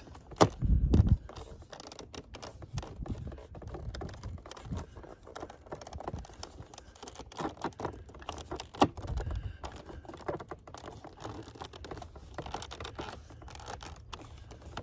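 Small plastic parts clicking, scraping and rattling as hands try to fit an aftermarket interior door handle mechanism into a car door panel, with a loud dull thump about half a second in and another near the middle.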